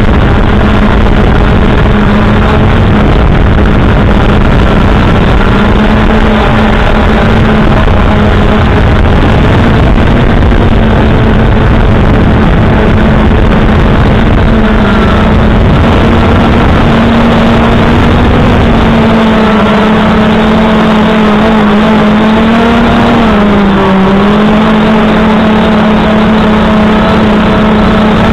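A multirotor drone's electric motors and propellers humming steadily, heard from the camera on the drone itself, with a low rumble under it that drops away about two-thirds of the way through. The pitch dips briefly and comes back up near the end.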